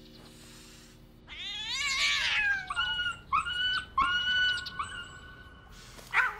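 A cat yowling. About a second in there is a long cry that rises and then falls, followed by a run of four short cries, each held at one pitch, and a brief sharp cry near the end.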